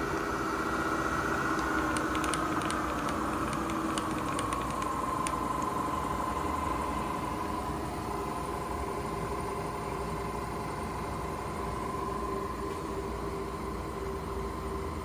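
SWI TRAK K CNC vertical milling machine running with a steady motor whine. About two seconds in the whine drops in pitch over a couple of seconds, with a scatter of light ticks, then holds steady.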